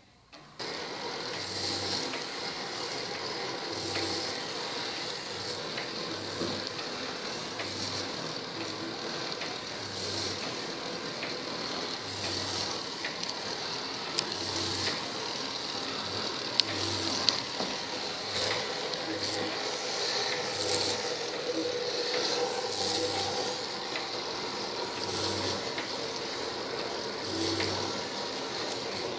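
K'nex harmonograph running on its electric motor: plastic gears and wheels turning with a steady whir and clicking, and a regular knock about once a second. It starts about half a second in.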